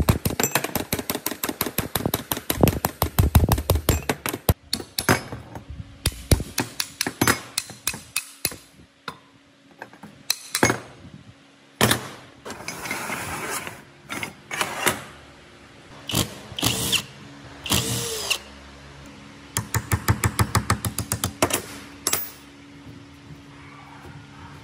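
Rusty metal parts of an old rolling planer being knocked and clanked against each other and a steel workbench as they are taken apart. Runs of quick sharp knocks come several a second and thin out after about five seconds. A short scraping rasp comes around twelve seconds in, and another fast run of knocks around twenty seconds.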